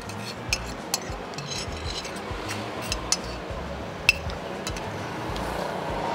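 Metal spoon and fork clinking and scraping against a plate several times while eating, the sharpest clink about four seconds in, over background music with a low beat.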